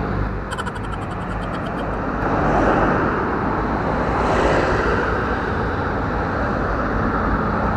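Road traffic going past: a steady low hum under a rushing noise that swells between about two and five seconds in as a vehicle goes by.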